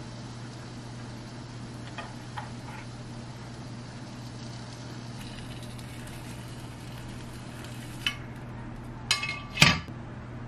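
Quiet kitchen food-handling sounds over a steady low hum. There are faint taps as food is set into a ceramic bowl, a soft hiss that stops abruptly with a click, and then two sharp ringing clinks near the end as a metal spoon and a soy sauce bottle are taken up.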